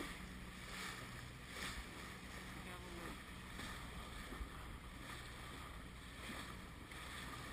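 Small motorboat running over open water: a steady low engine hum under the wash of water along the hull and wind on the microphone.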